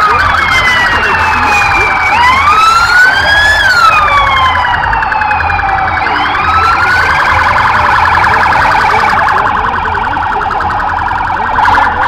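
Police vehicle sirens sounding in a slow wail that rises and falls over a few seconds at a time, over a second, fast-warbling siren tone.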